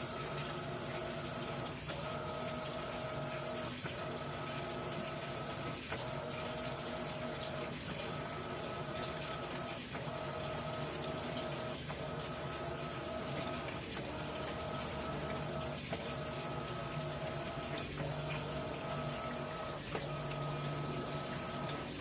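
Electrolux LAI17 17 kg top-load washing machine agitating a load of sheets and shirts in water: a steady motor whine with water churning, broken briefly about every two seconds as the wash action changes direction.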